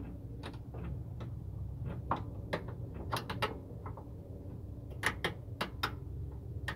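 Irregular sharp metal clicks and taps of a hand tool working the end fitting and clip of a truck's hood gas strut, over a low steady hum.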